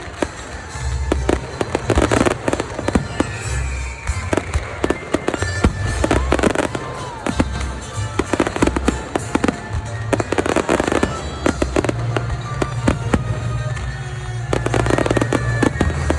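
Fireworks display: many bangs and crackling bursts in quick succession, with a few whistling glides among them.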